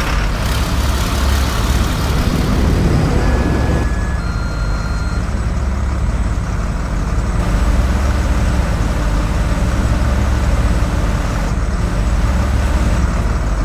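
Bus engine running with a steady low rumble, swelling briefly about two to four seconds in. Two short faint beeps come about three and four seconds in.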